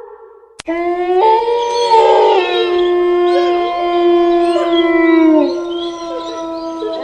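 A pack of wolves howling in chorus, as a horror sound effect. After a short click about half a second in, several long howls overlap, some held on one pitch and others gliding up and down.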